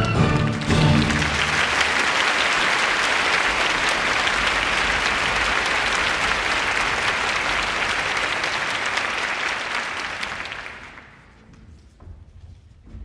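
Audience in a theatre applauding as the orchestra's closing chord dies away in the first second or so. The applause holds steady for about ten seconds, then fades out near the end.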